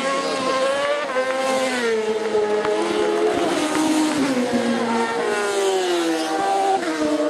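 Two racing motorcycles at full throttle on a closed public road, coming up the road and passing close one after the other. Their engine notes drop in pitch as each goes by.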